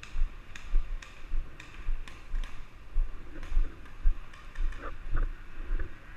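Footsteps, about two a second, each with a dull low thud and a light click, heard as though through a camera being carried by someone walking.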